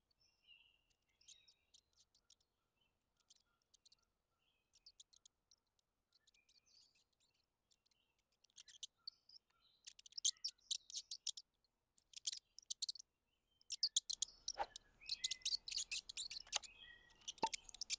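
Mice eating from a smear of food: rapid, high-pitched clicking of nibbling and licking. It is sparse and faint at first and becomes denser and louder from about halfway.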